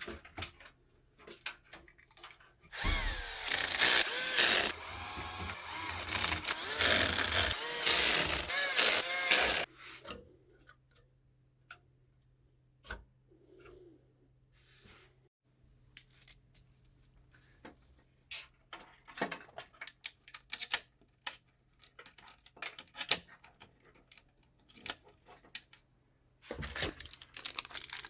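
Electric screwdriver motor running for about seven seconds with a wavering pitch, then scattered clicks and light taps of parts being handled, and a short noisy burst near the end.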